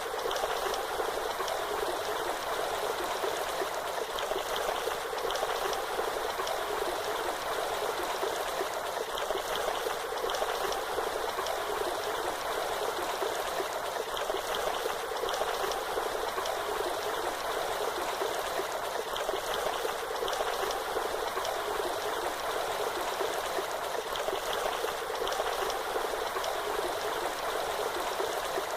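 Waterfall: a steady, unbroken rush of falling and splashing water, with little low rumble.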